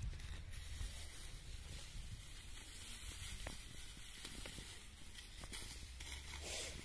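Dry rice straw rustling and crackling faintly as it is handled, with a louder rustle near the end as a bundle is lifted, over a low steady rumble.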